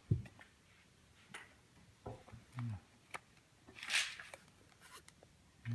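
Watch packaging being handled during unboxing: scattered light clicks and taps, with a brief rustle about four seconds in.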